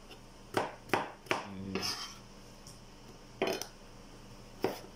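Kitchen knife cutting a raw potato into sticks on a plastic cutting board: sharp knocks as the blade hits the board, three in quick succession in the first second and a half, then two more spaced out later.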